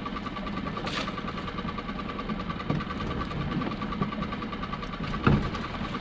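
Small boat's engine idling with a steady, pulsing hum while a lobster pot is hauled up. A brief hiss about a second in, and a heavy thump near the end as the pot comes up against the boat's side.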